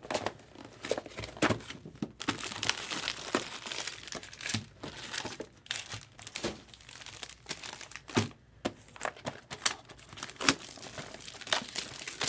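Plastic wrapping of trading card boxes and packs crinkling and tearing as they are opened, with irregular sharp crackles.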